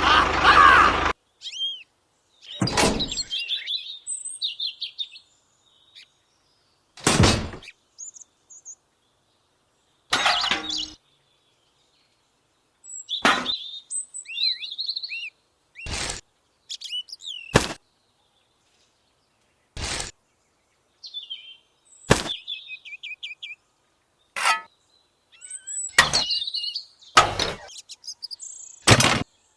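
Birds chirping in short phrases, broken by about a dozen sharp knocks or taps spaced a couple of seconds apart; between them the sound cuts out completely.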